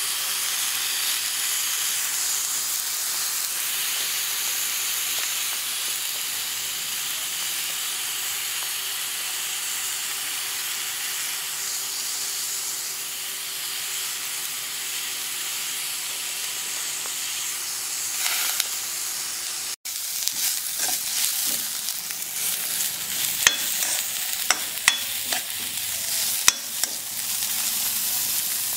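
Diced vegetables and shredded chicken sizzling steadily in hot oil in a wok. In the last third a steel ladle stirs the stir-fry, with sharp clinks and scrapes against the wok over the sizzle.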